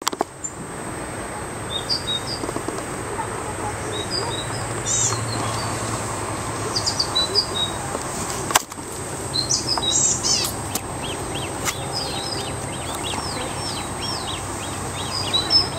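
Small birds singing in the trees by the water: short high chirps and phrases throughout, turning into a fast run of repeated notes over the last few seconds. A single short click a little past halfway.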